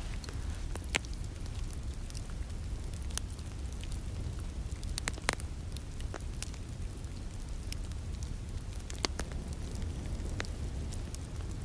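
Wood fire burning, a steady low rumble and hiss of the flames with scattered sharp crackles and pops, the loudest about a second in, about five seconds in and near the end.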